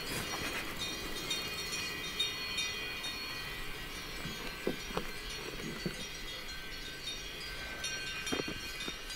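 Many steady high ringing tones layered together, chime-like, with a few short soft knocks about five seconds in and again near the end.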